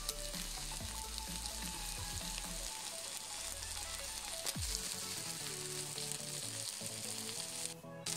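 An egg frying in a pan with pieces of chicken fillet, with a steady sizzle that drops out briefly near the end.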